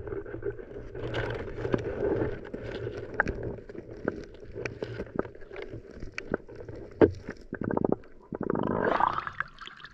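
Muffled underwater sound from an action camera held beneath the surface: a steady low rumble with scattered clicks and knocks as a hand works through seaweed and pulls out a sea urchin. A louder rush of water comes shortly before the end.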